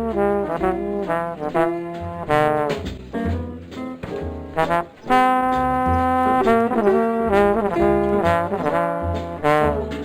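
Background music led by brass instruments, playing quick melodic phrases over a bass line.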